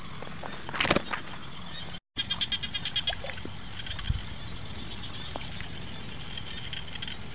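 Frogs calling in rapid pulsed trills, loudest just after a brief break about two seconds in. About a second in there is a louder rustle of grass brushed close to the microphone.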